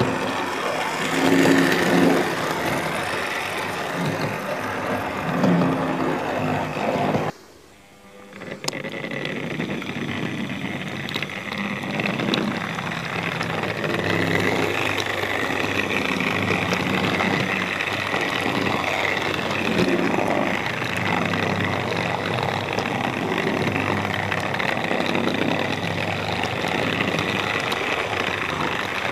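Tri-ang model railway locomotives running on track: a steady electric motor whine with wheel and rail rumble. The sound drops out for about a second some seven seconds in, then carries on steadily.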